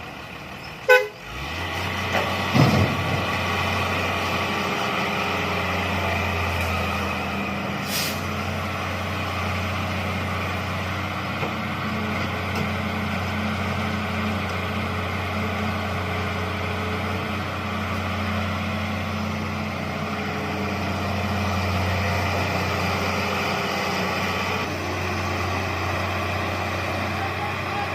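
Heavy diesel machinery engine running steadily with a low, even hum. Near the start there is a sharp loud knock and a brief falling whine, and there is a short hiss about eight seconds in.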